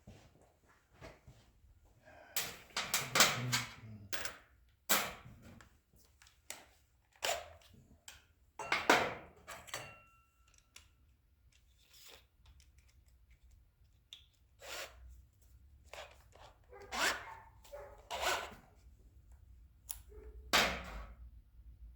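Irregular clicks, clinks and knocks of hand tools and small metal parts being handled and set down. A handful of louder clatters stand out among lighter ticks.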